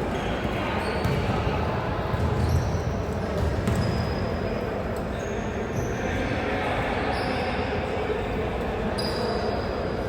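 Basketball game in a gym: a ball bouncing on the court with low thuds, under a steady din of voices, with several short high squeaks scattered through.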